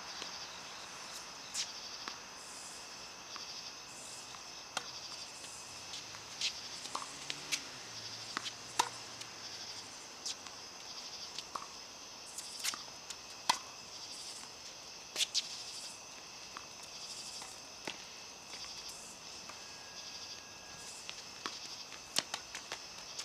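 Tennis balls being struck and bouncing on a court: sharp knocks at irregular intervals, one every second or two. A steady, high, pulsing chirr runs under them.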